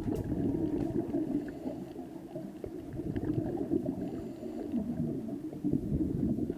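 Muffled, low gurgling and bubbling of water, continuous and irregular, with almost nothing above a low rumble.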